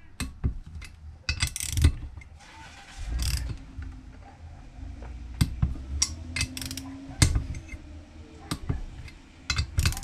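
Click-type torque wrench ratcheting on the rocker box cover nuts of a Harley-Davidson Shovelhead cylinder head, with irregular sharp clicks and metal clinks as the nuts are tightened to about 13.5 ft-lb in a crisscross pattern.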